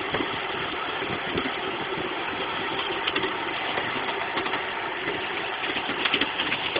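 A small engine running steadily, with a few light clicks about six seconds in.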